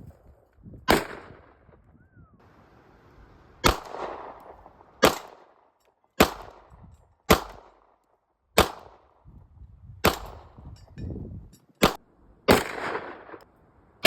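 A firearm fired as single shots, about nine in a row at uneven intervals of one to two seconds, each crack trailing off in an echo.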